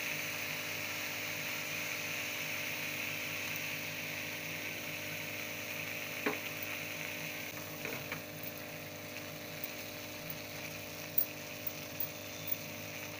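Grated beetroot sizzling steadily as it cooks in a clay pot, with a few light clicks of a steel spoon against the pot.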